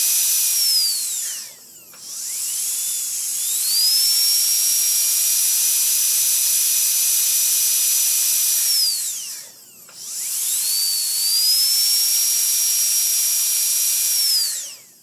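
Dentist's drill running at a steady high-pitched whine with a hiss, spinning down and back up again twice, then winding down and stopping at the end.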